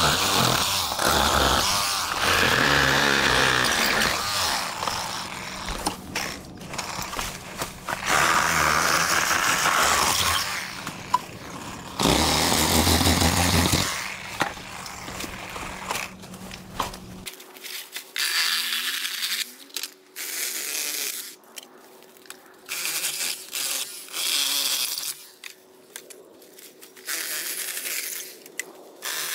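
Power saw cutting bamboo in bursts of two to four seconds with short pauses between. From about two-thirds of the way through, the cuts come as shorter, thinner-sounding bursts.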